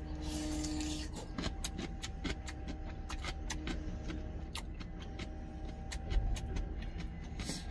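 Close-up chewing of a bite of altari radish kimchi: many short, crisp crunches in quick succession over a low steady hum.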